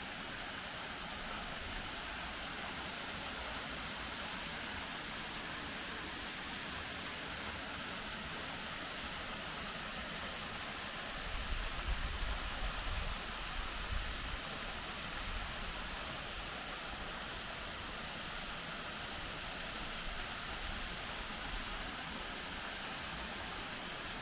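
Steady, even rushing noise, with a few seconds of low rumble on the microphone about halfway through.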